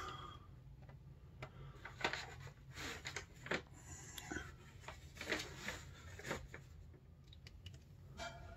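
Faint low hum with scattered light clicks and rustles.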